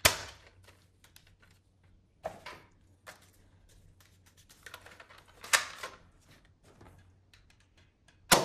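Plastic clicks and clacks from a toy foam-dart pistol being handled and loaded, with sharp snaps at the start, about two and a half seconds in, about five and a half seconds in and at the end.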